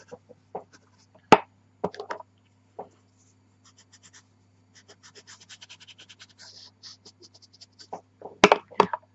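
Pastel pencil scraping on velour pastel paper in short, quick shading strokes, a fast run of them through the middle, with a few sharp knocks near the end.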